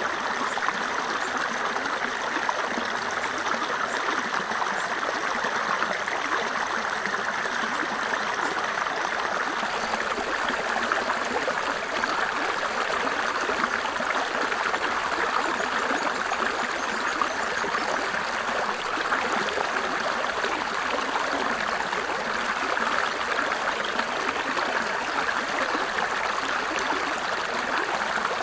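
Shallow rocky creek running over stones, a steady rush and splash of water. The tone changes slightly about ten seconds in, where the recording moves from a small cascade to a shallow riffle.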